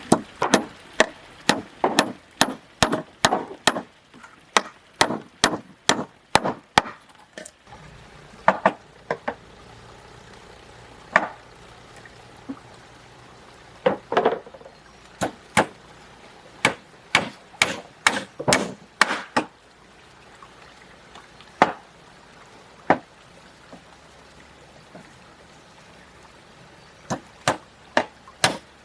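A hand tool striking wood: runs of sharp blows, about two to three a second, broken by pauses, with only a few scattered blows in a longer lull after the middle.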